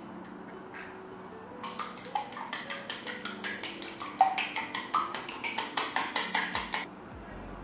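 Wooden chopsticks beating eggs in a glass mixing bowl. They tap against the glass in rapid clicks, about five a second, starting about a second and a half in and stopping shortly before the end. Soft background music plays throughout.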